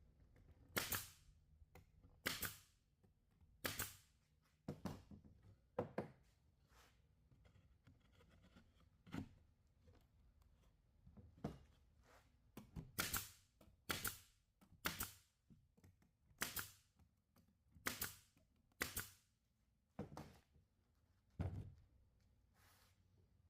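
A series of about sixteen sharp knocks, one every second or so with a short pause partway through, in a small room.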